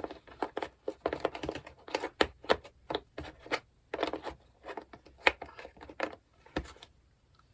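Small metal bike tools and bits clicking and clattering as they are handled, taken out and fitted back into a tool kit: a quick, irregular run of light clicks that stops shortly before the end.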